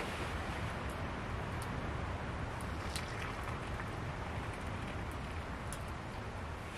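Wood fire crackling in a folding metal twig stove, a few sharp pops over a steady hiss.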